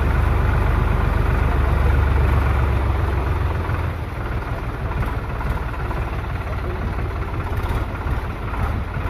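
Diesel tractor engine running steadily at low revs as the tractor moves slowly through floodwater. Its low rumble eases a little about three and a half seconds in.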